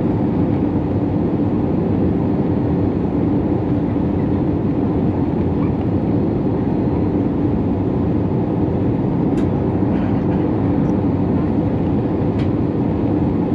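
Steady in-flight cabin noise of an Airbus A320neo: engine and airflow rumble heard from inside the cabin by the wing, with a steady hum in the low-middle range. Two faint ticks come about three seconds apart in the latter part.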